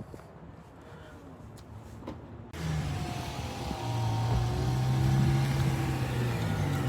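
BMW M6's 5.0-litre V10 engine under acceleration, cutting in suddenly about two and a half seconds in after a quieter start, then getting steadily louder.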